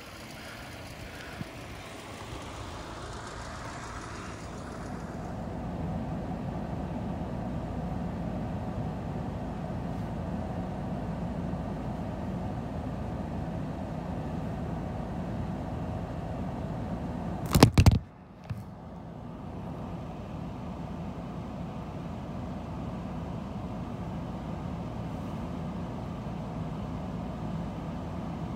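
Car engine idling, a steady low hum heard from inside the car. About two-thirds of the way through there is a short, loud burst, and the hum drops away for a moment before it returns.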